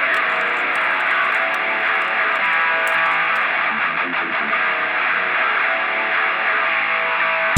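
Background rock music with guitar, sounding thin and muffled, as if filtered, with the bass and treble cut away.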